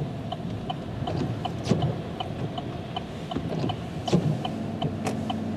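Car cabin with road and engine rumble, and a turn signal ticking steadily about three times a second. A few scattered sharp taps sound over it.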